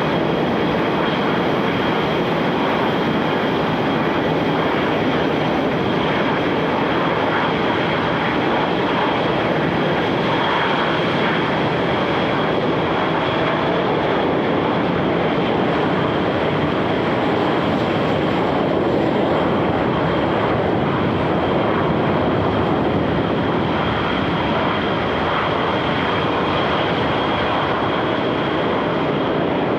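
Jet engines of F/A-18 Super Hornets running at taxi power: a loud, steady rush with a constant high whine.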